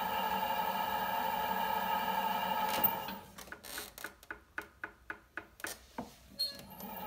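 Electric potter's wheel motor running with a steady whine that cuts out about three seconds in. A dozen or so quick taps follow, about three a second, as a hand taps the leather-hard pot to re-center it on the slowly turning wheel head. The motor whine comes back near the end.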